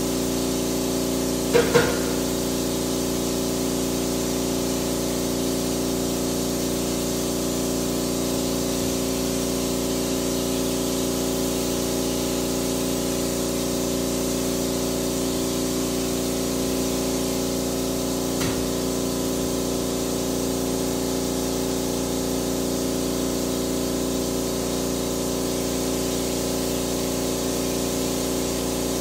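Corded electric insecticide sprayer running steadily: a motor hum with a constant hiss of spray. A brief loud knock comes about two seconds in, and a fainter one a little past the middle.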